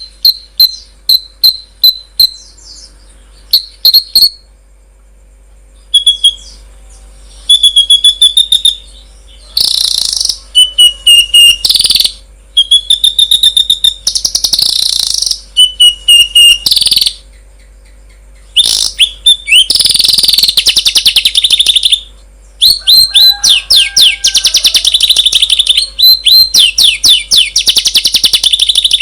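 Songbird song: loud, high-pitched chirps and fast trills in bursts separated by short pauses, growing into a long dense run of rapid notes near the end. This is a masteran recording, birdsong played to tutor caged songbirds.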